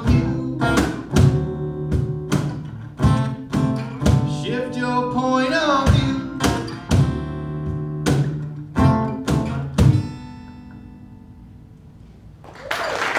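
Acoustic guitar, upright bass and cajon playing the closing bars of a song, with repeated sharp, accented hits together. After the last hit, about ten seconds in, the final chord rings out and fades, and applause begins near the end.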